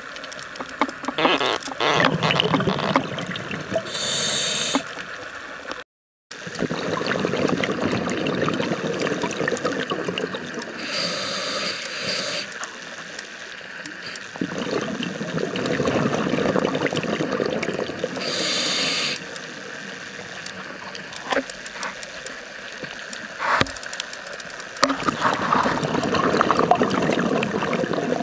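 Scuba diver's regulator breathing underwater: a short hissing inhale about every seven seconds, each followed by a long gurgling rush of exhaled bubbles.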